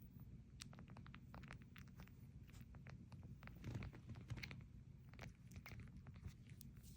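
Three newborn schnauzer puppies suckling together, making faint, irregular wet clicking and smacking sounds as they nurse.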